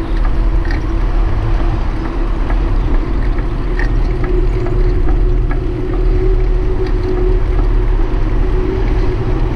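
Wind buffeting the microphone on a moving bicycle, a steady low rumble, with tyre noise on the asphalt. A faint steady hum comes in about halfway through, and light ticks are scattered throughout.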